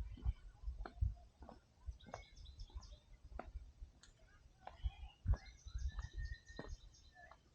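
Footsteps on a forest trail, uneven knocks and thumps about once or twice a second, with small birds chirping and one short held whistled note about two-thirds of the way in.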